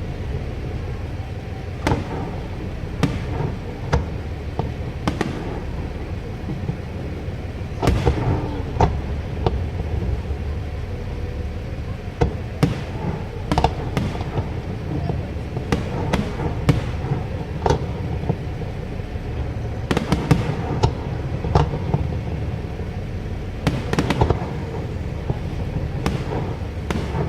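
Aerial fireworks bursting overhead: sharp bangs at irregular intervals, some in quick clusters, over a steady low rumble.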